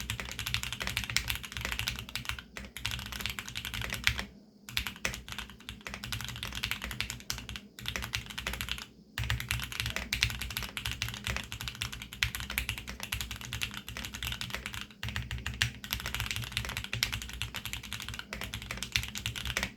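Fast, continuous typing on a custom mechanical keyboard: a Geonworks F1-8X with lubed Tealios V2 linear switches and PBT double-shot keycaps. A dense run of keystrokes with brief pauses about four, eight and nine seconds in.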